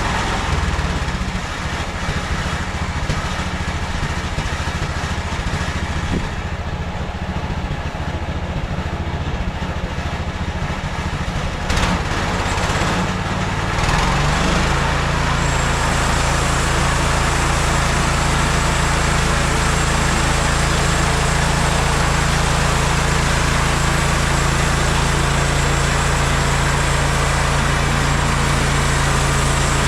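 Gas engine of a MechMaxx SM32 portable bandsaw mill idling unevenly, then throttled up about halfway through to a steady high speed, with a thin high whine joining it soon after. A single sharp click comes just before the rev-up.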